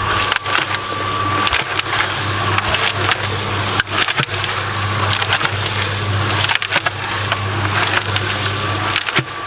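Small concrete mixer turning its first batch of concrete: the motor hums steadily under the scraping rattle of gravel and sand tumbling in the drum, with scattered sharper clacks of stones.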